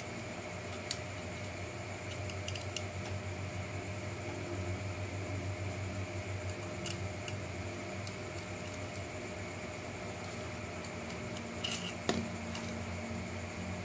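Small screwdriver and tiny screws clicking and tapping against a hard plastic RC fender liner part during hand assembly. Scattered sharp clicks, with a pair about seven seconds in and a cluster near the end, over a steady low hum.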